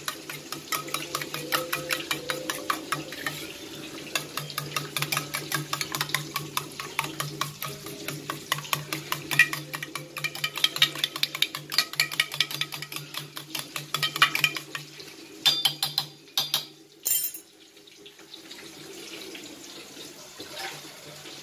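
Steel spoon beating eggs in a steel tiffin box: rapid, regular clinks of the spoon against the metal sides. The beating stops about fifteen seconds in, followed by a few louder clatters.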